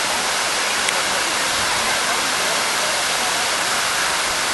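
Park fountain's water jets spraying and falling back into the pool: a steady hiss of splashing water.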